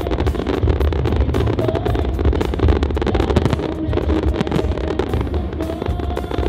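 Music for a fireworks display over loudspeakers, mixed with the steady low rumble and dense crackle of fireworks going off.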